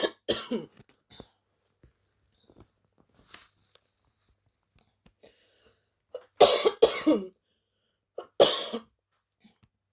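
A woman coughing: two coughs right at the start, two more about six and a half seconds in, and a last one near the end.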